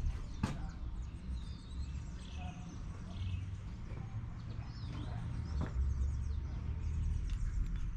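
Birds chirping and calling, short rising and falling chirps scattered throughout, over a steady low rumble, with a sharp click about half a second in.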